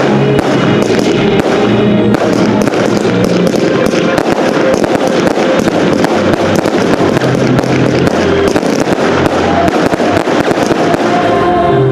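Aerial firework shells bursting in a dense, unbroken stream of bangs and crackles.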